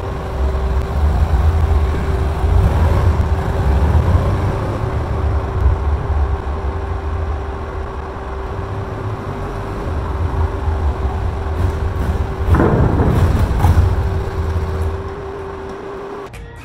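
Kawasaki Ninja 300's parallel-twin engine and exhaust running as the bike rides through a concrete underground car park. It swells louder about twelve and a half seconds in, then eases off.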